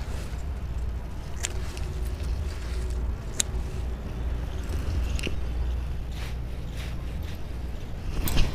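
Gongura (roselle) stems being cut by hand: a few short, sharp snaps, roughly every two seconds, over a steady low rumble.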